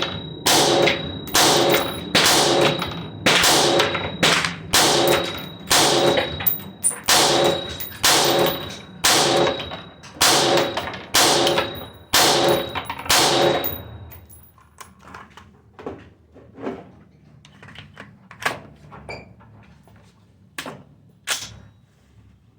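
AR-15 rifle firing a rapid string of about seventeen shots, a little more than one a second, in a suppressive-fire drill; the string stops about 14 seconds in. Fainter, scattered gunshots follow.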